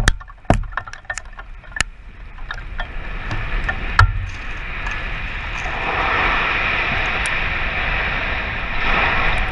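Collapse of a 500-ft concrete cooling tower heard close up: sharp cracks and knocks of flying debris striking around, with a heavy thud about four seconds in. From about five seconds a steady rushing noise swells and holds as the dust blast rolls over.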